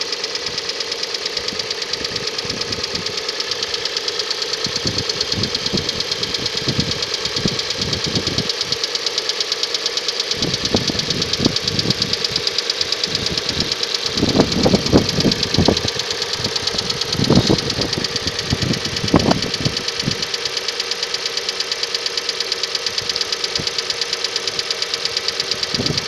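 Hyundai ix35's G4NA four-cylinder petrol engine idling with a fast, even ticking, broken by several irregular bursts of knocking through the middle. The knock is typical of the timing chain slapping from a weak hydraulic chain tensioner.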